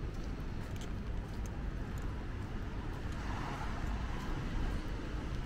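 Steady low rumble of city traffic, with faint scattered ticks; the hiss swells slightly about three seconds in.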